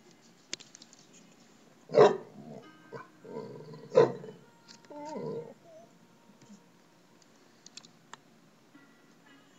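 Dog whining for attention, with two short, loud cries about two and four seconds in and wavering whines between and after them.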